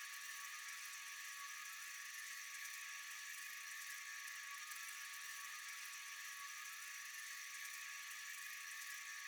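Steady chorus of night insects: a continuous high-pitched shimmering hiss with a few constant whining tones, unchanging in level.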